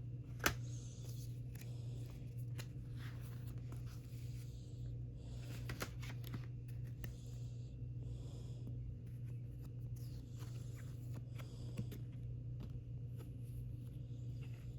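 K-pop album contents and packaging being handled: intermittent paper and plastic rustling with light taps and clicks, a sharp click about half a second in, over a steady low hum.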